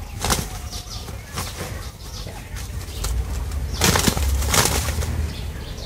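Two fighting roosters flapping their wings in sudden flurries: a short burst just after the start, then a longer, louder flurry about four seconds in as they clash.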